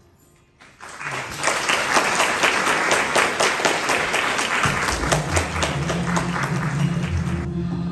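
The tail of the performance music fades out, then an audience breaks into applause about a second in and keeps clapping steadily. Low steady music comes in beneath the clapping about halfway through.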